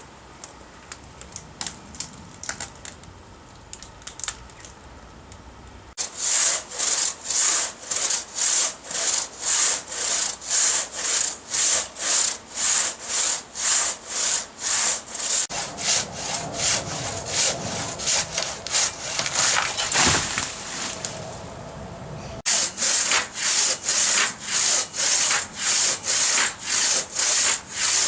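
Hand saw, likely a crosscut saw, being pushed and pulled through eucalyptus wood in steady strokes of about two a second. The sawing starts about six seconds in, after a quieter stretch with faint clicks, and pauses briefly later before going on.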